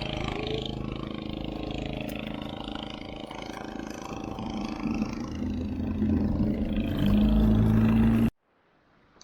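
Boat engine running steadily, louder and deeper from about seven seconds in, then cut off abruptly a second before the end, leaving only a faint wash.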